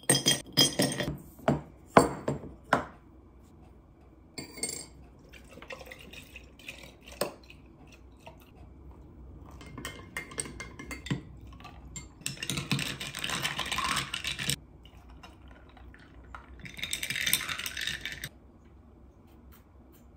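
Ice cubes dropped clinking into a glass jar, the loudest sounds, in a quick run of sharp clinks over the first three seconds. Then a metal spoon taps and stirs in a small drinking glass, and liquid is poured twice, a longer pour around the middle and a shorter one a few seconds later.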